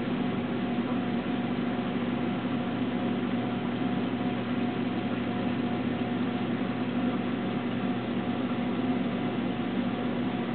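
Steady hum of a reef aquarium's pumps running, with an even hiss of circulating water.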